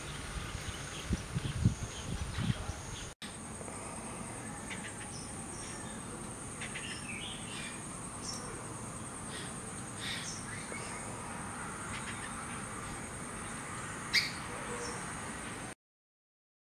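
Garden ambience: a steady high-pitched insect drone with scattered short bird chirps and calls, one louder call about fourteen seconds in. There are a few low thumps in the first few seconds, and the sound cuts off about a second before the end.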